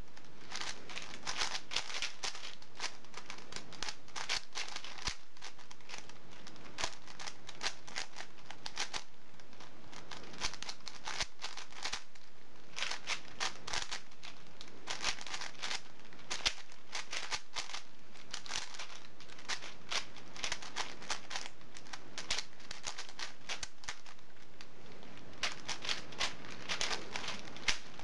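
Yuxin plastic speed cubes being turned fast by two solvers at once: dense rapid clicking and clacking of the layers, in bursts with brief pauses.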